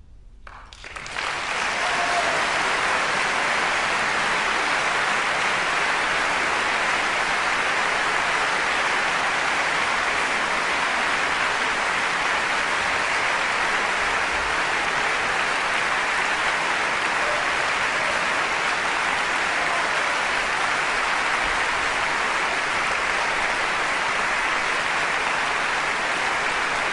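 Large audience applauding: the clapping breaks out about half a second in, swells to full within a couple of seconds and then holds dense and steady.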